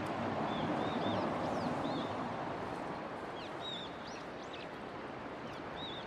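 Small birds chirping faintly over a steady outdoor hiss: a few short, high chirps in the first two seconds and a quick cluster of them a little past the middle.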